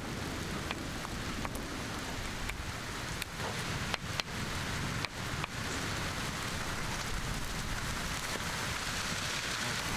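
Steady rain falling, an even hiss with scattered sharp ticks and taps.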